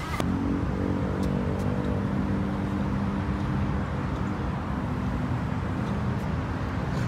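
Outdoor background noise with a steady low engine hum.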